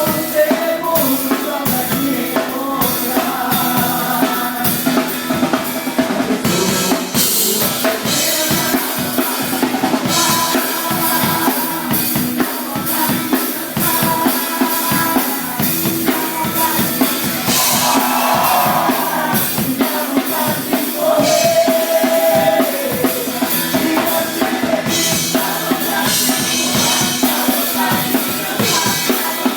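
Live band playing a worship song, led by a drum kit beating steadily on bass drum and snare with rimshots, over held pitched instrument notes, with cymbal crashes at several points.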